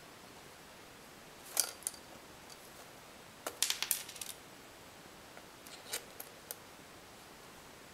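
Small plastic boom mounts clicking and clattering against a quadcopter's plastic chassis plate and its screws as they are handled and set in place: a couple of clicks, then a quick cluster of rattling clicks about three and a half seconds in, then a few more.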